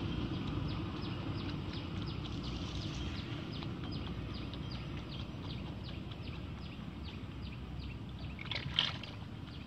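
Outdoor riverbank ambience: a steady low rumble with a run of short, high chirps repeating about three times a second, and one brief louder rasp near the end.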